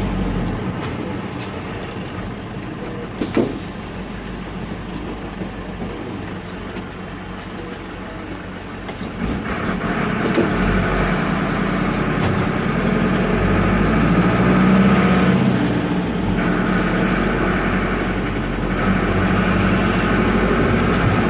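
Otokar M-2000 minibus's noisy air-cooled Deutz F4L912 four-cylinder diesel heard from the cab while driving: the engine note drops back for several seconds, then rises again and is loudest about two-thirds of the way through. A short sharp sound comes about three seconds in.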